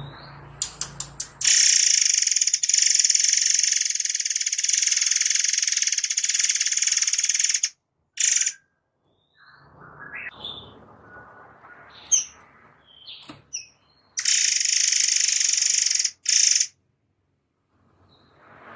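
Murai (white-rumped shama) singing long, rapid, high-pitched trills of densely packed notes, the 'air mancur' fountain-style volleys prized by keepers. One trill lasts about six seconds, then comes a short burst and a few scattered notes, and another trill of about two and a half seconds near the end.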